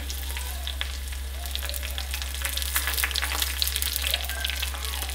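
Hot coconut oil sizzling in a small tempering pan with whole garlic cloves, mustard seeds and dried red chillies, stirred with a metal spoon. Sharp pops and crackles over a steady hiss grow denser from about a second and a half in as the tempering heats up.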